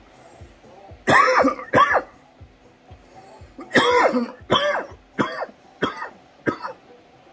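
A man coughing hard after a dab hit, in a fit of about seven coughs: two near one second in, then five more from about four seconds in, tailing off.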